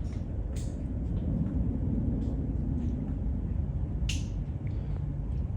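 Steady low rumble with a few sharp clicks, about half a second in and again near the end.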